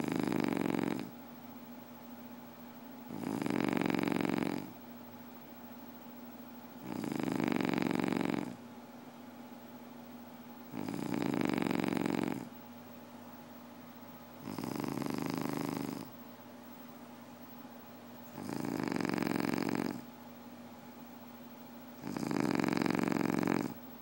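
Slow, regular snoring: seven snores, each lasting a second or more and coming about every four seconds, with a steady low hum in between.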